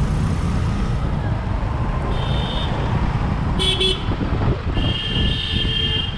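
Road traffic with a steady low rumble of passing motorcycles and buses, and vehicle horns honking: a short horn about two seconds in, two quick toots a little later, then a longer horn blast near the end.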